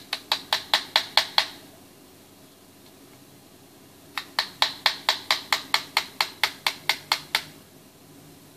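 A small brass hammer tapping lightly and quickly on a katana's hilt during disassembly, with sharp metallic taps at about five a second. One run of taps ends about a second and a half in, and a second, longer run goes from about four to seven seconds in.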